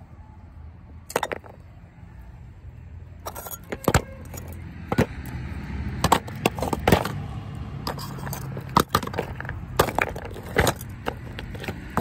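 Chunks of dry multani mitti (fuller's earth) and broken terracotta kulhad pieces clacking against each other in a plastic tub as a hand picks through them: irregular sharp knocks, some single and some in quick clusters, over a low steady hum.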